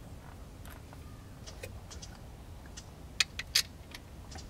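Small metallic clicks and clanks as a Holley four-barrel carburetor is handled and set down over the mounting studs onto a V8's intake manifold, with two sharp clicks a fraction of a second apart about three seconds in.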